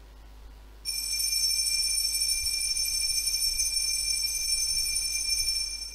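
Altar bell ringing continuously in several high tones, starting about a second in and stopping just before the end. It marks the elevation of the chalice at the consecration.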